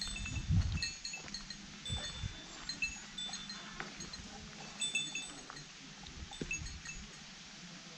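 Short, high-pitched notes at a few fixed pitches, repeating in small clusters, over low rumbling thumps of walking and wind on the microphone in the first second or so.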